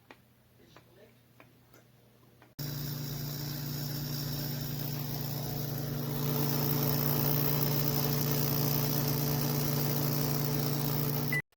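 Comfee CM-M201K countertop microwave oven running: a steady electrical hum with fan noise. It starts suddenly a few seconds in and stops suddenly near the end.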